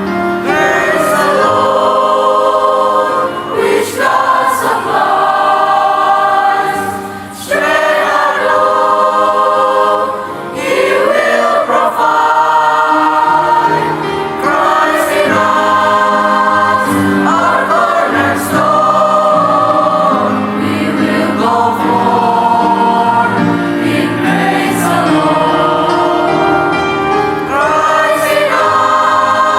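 Junior high school choir singing a praise song in phrases of long held notes, with brief breaks between phrases.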